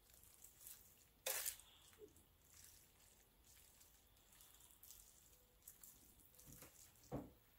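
Metal tongs stirring and lifting wet, cooked-down collard greens in a slow cooker: faint wet squelching, with two short louder knocks, about a second in and near the end.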